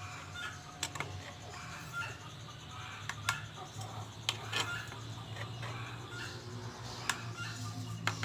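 Scattered light clicks and taps of hand work on an electric hand planer's blades as they are set and adjusted, over a steady low hum.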